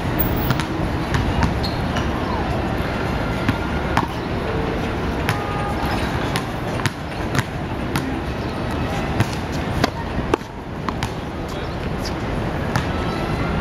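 Balls bouncing on a hard outdoor court and striking a wall: irregular sharp knocks, including basketball bounces, over a steady din of city street noise.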